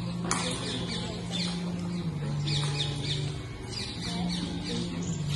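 Birds chirping in quick, short, falling notes that come in runs, over a low steady hum.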